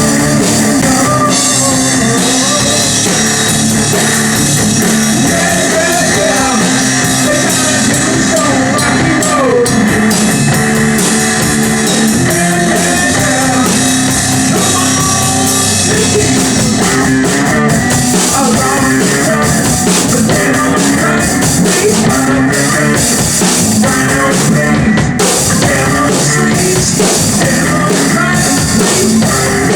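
Rock band playing at a steady, loud level, with drum kit and guitar.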